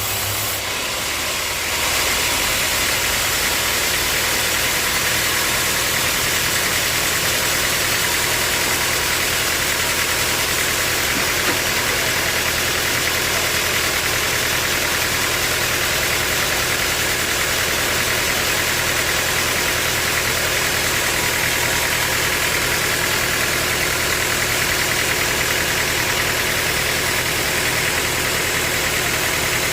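Sawmill machinery running steadily with an engine-like hum and a wide hiss; the sound shifts about two seconds in and then holds unchanged.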